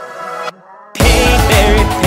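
Intro music: a soft melody cuts out about half a second in, and a loud track with a heavy beat starts about a second in.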